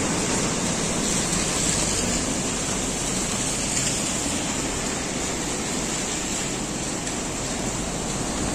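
Steady rushing of the swollen Ganges flowing through a river barrage: an even, unbroken hiss of moving water.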